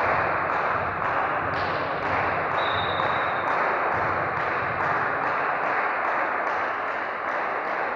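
Steady, echoing background noise of a sports hall during a volleyball match, with one short, high-pitched referee's whistle blast about two and a half seconds in.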